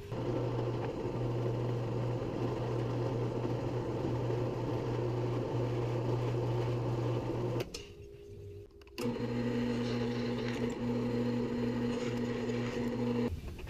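Drill press motor running steadily while bits are fed into a plywood board fitted with track strips. The hum breaks off about eight seconds in and comes back a second later at a different pitch.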